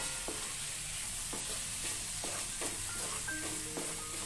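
Wooden spatula stirring and scraping bean pods through sizzling masala in a metal kadhai, over a steady sizzle, with scattered short scrapes and knocks against the pan.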